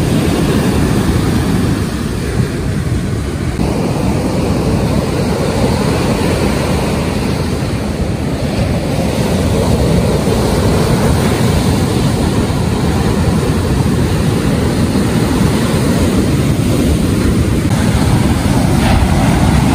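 Rough surf breaking on the beach, a steady heavy wash, with wind buffeting the microphone.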